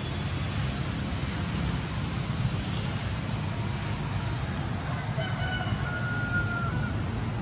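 Steady low background rumble, with a rooster crowing faintly in the distance about five seconds in, one drawn-out call lasting a second and a half.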